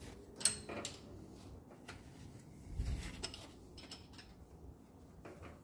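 Irregular light metallic clicks and taps from hand tools and fasteners being worked in a car's engine bay, with a dull low bump about three seconds in.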